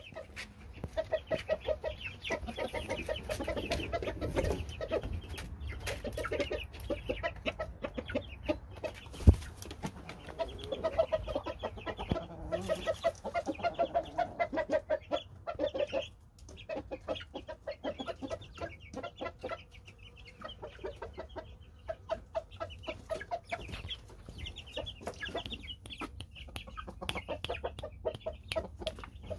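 Chickens clucking in long runs of short, quickly repeated calls, with one sharp knock about nine seconds in.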